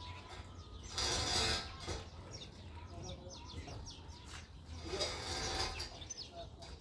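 Small birds chirping over and over in short, quick downward-sliding chirps. Two louder rushes of noise, one about a second in and one about five seconds in, each lasting under a second.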